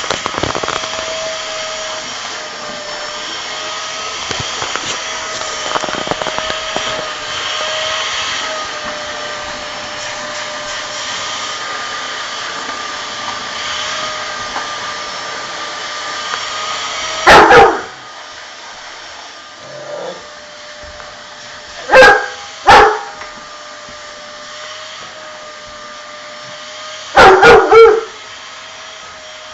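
Vacuum cleaner running with a steady whine while a dog is being vacuumed. Past the halfway point the dog starts barking: several loud, sharp barks, some in quick pairs and a short run near the end.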